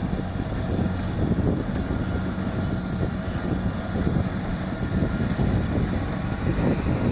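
Kubota DC-70 Plus combine harvester running, its diesel engine a steady drone under an uneven low rumble.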